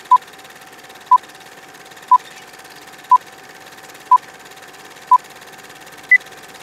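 Old film-leader countdown sound effect: a short beep once a second, six at one pitch and a seventh higher near the end, over a steady hum and the fast, even rattle of a film projector.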